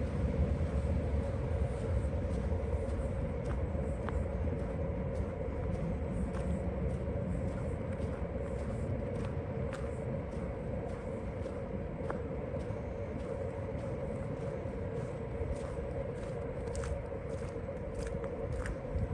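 Steady low rumble with a constant hum, a motor running, with faint scattered clicks over it.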